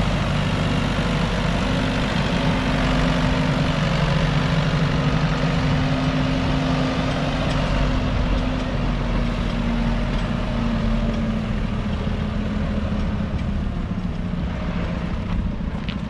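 Old Ford tractor's diesel engine running as it tows a feeder wagon past at close range. The engine note drops a little about halfway through and the sound slowly gets quieter as it moves away.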